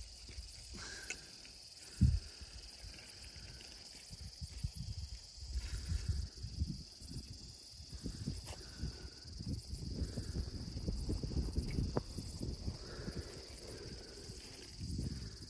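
Steady high-pitched insect chorus, with gusts of wind rumbling on the microphone from about a third of the way in and a single low thump about two seconds in.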